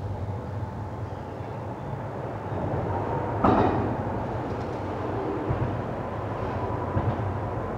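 A steady low rumble with a faint steady hum above it, slowly growing louder, and a short sharp clatter about three and a half seconds in.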